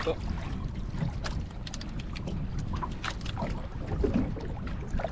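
Wind buffeting the microphone and choppy water moving around a small boat, with scattered light knocks.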